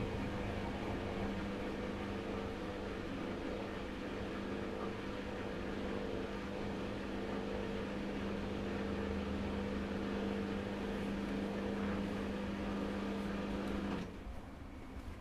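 Front-loading washing machine running with a steady motor hum that cuts off about fourteen seconds in.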